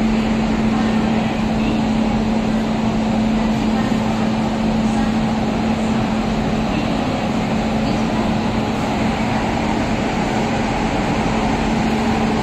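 WAG-9 electric locomotive running with its equipment on: a steady, loud hum with one constant low tone over an even rushing noise.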